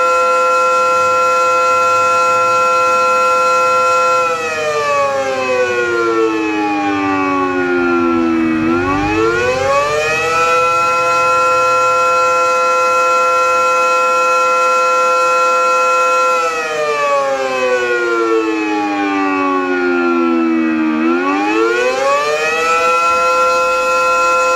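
Fire company air raid siren sounding on test: it holds a steady pitch, then slides down in pitch for about four seconds and quickly climbs back up to hold again. The fall and rise happen twice.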